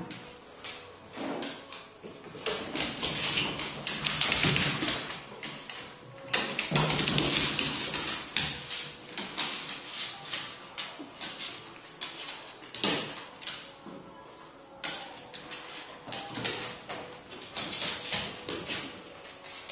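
Two dogs at rough play on a hardwood floor: claws clicking and scrabbling, thumps and scuffling, heaviest in a long noisy flurry through the first half and in shorter bursts after.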